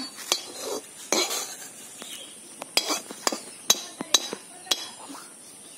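Metal spatula stirring and tapping in a metal wok: a string of sharp clinks at uneven intervals, about one a second, with light scraping between them.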